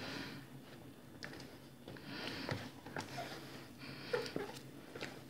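A hand mixing flour into a soft dough in a plastic bowl: faint rustling strokes that come and go, with a few light clicks.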